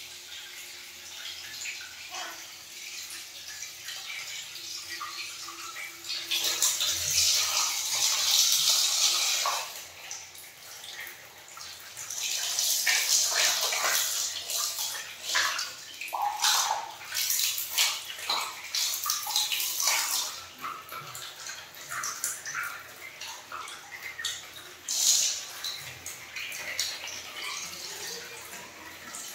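Water running and splashing, with many short splashes, louder and fuller in two long stretches: about six seconds in and again from about twelve to twenty seconds.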